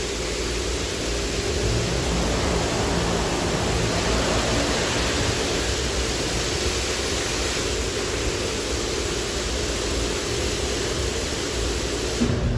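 High-pressure water jets of a Mark VII touch-free car wash spraying a foam-covered car: a steady hiss of spray with a faint low hum beneath it.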